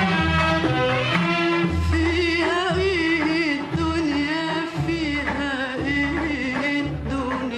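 Classic Arabic song recording: an orchestra plays a wavering, ornamented melody over low bass notes that come and go.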